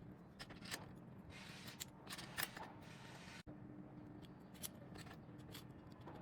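Faint, scattered small clicks and taps of hand tools working tiny surface-mount parts on a circuit board, over a low steady hum.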